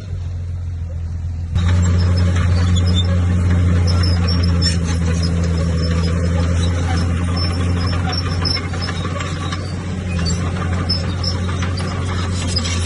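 Bulldozer's diesel engine running steadily with a low drone, with rough mechanical noise from the machine working. The sound jumps louder about a second and a half in.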